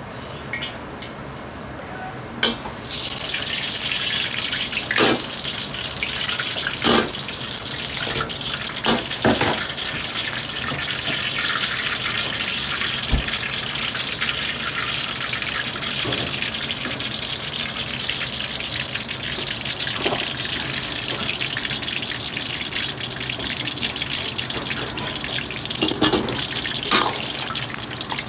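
Hot oil sizzling in a carbon-steel wok over a gas burner, starting abruptly about two and a half seconds in as pieces of beef go into the oil. A few sharp knocks stand out over the steady sizzle.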